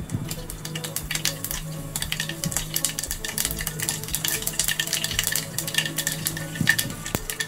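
Mustard and fenugreek seeds popping and crackling in hot oil in a saucepan, with rapid, irregular sharp pops throughout. The seeds are spluttering: the oil is hot enough for tempering.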